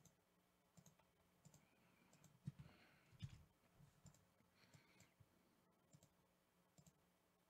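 Faint, irregular clicking of a computer mouse and keyboard, with a couple of duller knocks near the middle.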